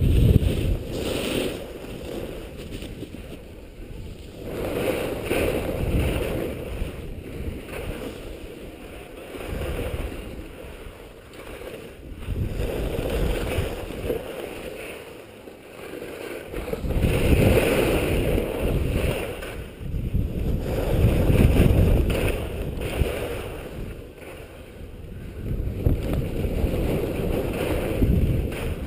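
Wind rushing over an action camera's microphone as a skier descends, with skis hissing and scraping across the snow; the rush swells and fades every few seconds with the turns.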